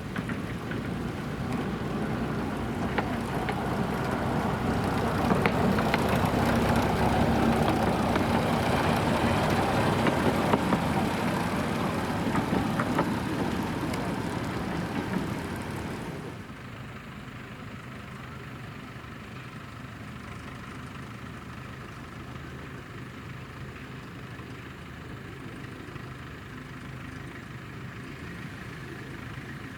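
Narrow-gauge forest railway train running past, its engine and wheels growing louder with scattered clicks, then the sound drops abruptly about halfway through to a steady, quieter engine idling.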